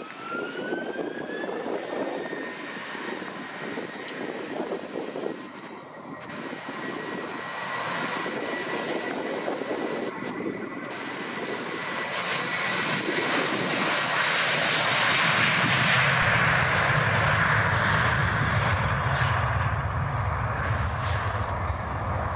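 Airbus A321 jet engines spooling up, with a whine that rises over the first two seconds and then holds. The engine roar builds steadily and peaks with a deep rumble in the second half as the airliner rolls past on its take-off run.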